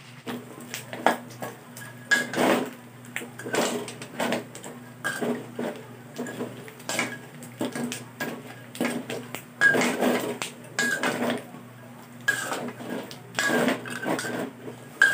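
Metal spatula scraping and knocking against an aluminium wok as pork skin is stirred in its rendered fat, cooking down for chicharon. The strokes are irregular, roughly one a second, several with a brief metallic ring.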